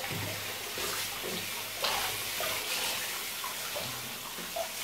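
Running water splashing, with a few brief louder splashes, the strongest about two seconds in.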